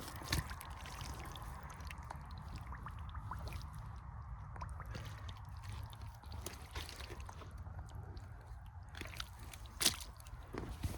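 Muck Arctic rubber boots squelching and sloshing in wet peat-bog mud, with scattered small wet clicks and one sharper splat about ten seconds in, over a steady low rumble.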